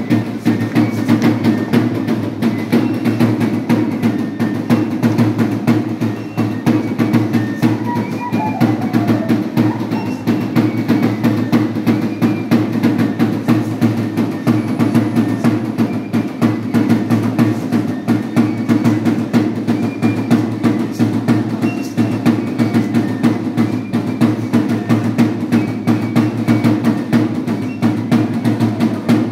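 Live traditional dance music: a hand-held drum beaten in a steady, driving rhythm, with a guitar playing along.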